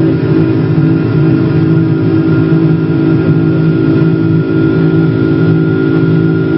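Boeing 747 jet engines at takeoff power, heard from inside the passenger cabin: a loud, steady rumble with several constant hums running through it.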